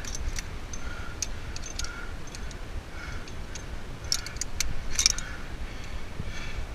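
Metal climbing gear clinking: carabiners, quickdraws and cams jangling on the climber's harness, in scattered light clicks with a quick cluster about four to five seconds in.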